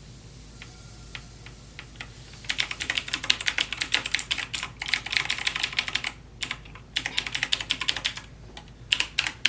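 Typing on a computer keyboard: a few scattered key taps, then about two and a half seconds in, fast continuous clicking of keys with a couple of brief pauses.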